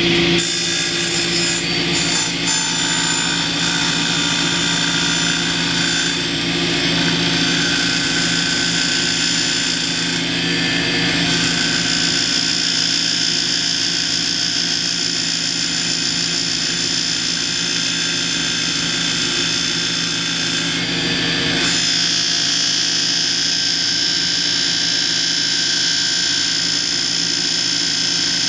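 Table saw running at full speed with a wooden board pressed and dragged against the side of the spinning blade, heating it by friction. A steady whine of several held tones, with brief changes in the high end about ten and twenty-one seconds in.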